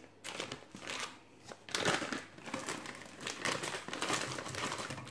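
Plastic packet of crushed M&M's crinkling as it is handled and tipped over a mixing bowl. A few scattered crackles at first, then denser and louder crinkling from about two seconds in.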